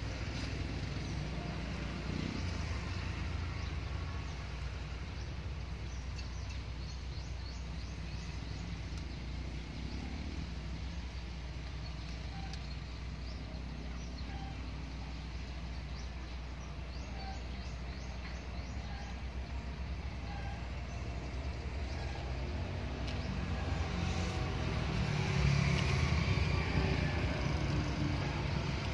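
Steady low engine hum that grows louder near the end, with two faint runs of quick, high scratchy strokes.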